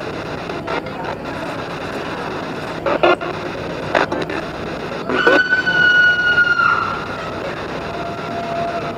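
SB7 spirit box sweeping through radio stations: a steady hiss of static broken by short clicks and bursts as it jumps between stations. About five seconds in, a steady tone holds for about a second and a half, and a fainter, lower tone comes in near the end.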